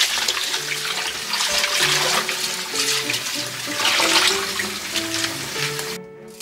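Tap water running and splashing onto lettuce leaves in a stainless steel colander as they are rinsed by hand. It stops suddenly near the end. Background music plays under it.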